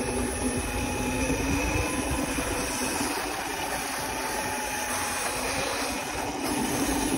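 Small motorbikes riding along at speed: a motor whine that wavers a little in pitch, under a steady rush of wind on the microphone.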